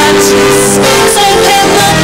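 Opening theme music of a telenovela, a song with long held melodic notes over continuous accompaniment.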